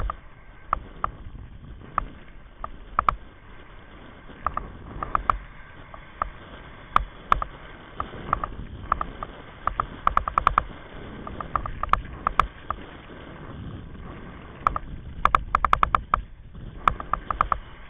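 Kite buggy rolling fast over hard beach sand, with wind buffeting the mounted camera and a steady low rumble from the wheels. Irregular sharp clicks and rattles from the buggy's frame and camera mount come throughout, sometimes in quick bursts of several, around ten seconds in and again near the end.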